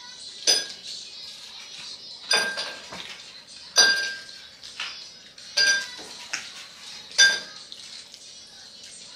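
Metal spoon clinking against a glass baking dish: five sharp, ringing clinks about every one and a half to two seconds, with smaller taps in between.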